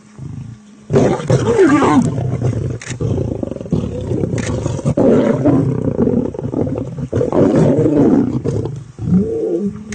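Large wild animal roaring loudly and roughly. The sound starts abruptly about a second in and goes on in several long bouts with brief dips.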